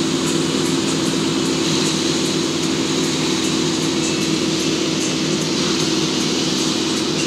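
Towboat engine running steadily at wake-surfing speed, a constant low drone over the rushing hiss of the churning wake.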